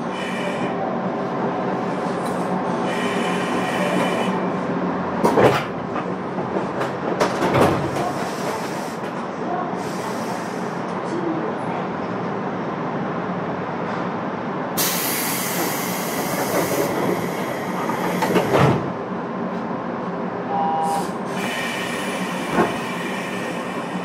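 Cabin running noise of a JR West 201-series electric train: a steady rumble and hum, with a few sharp clicks of the wheels over rail joints. There are short stretches of high wheel squeal and, in the middle, a few seconds of high hiss.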